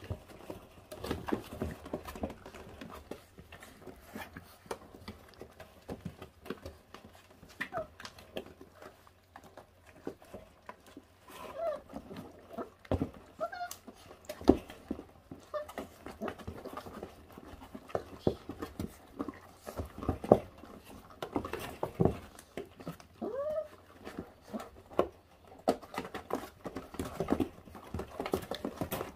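A litter of four-week-old puppies chewing and tearing at raw meat and bones: many short wet smacks and clicks. A few brief squeaky puppy calls about twelve, fourteen and twenty-three seconds in.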